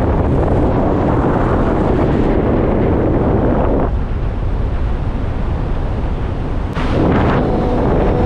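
Wind buffeting the microphone during a paraglider flight: a heavy, steady rush that eases for a few seconds about four seconds in and comes back in full near the end.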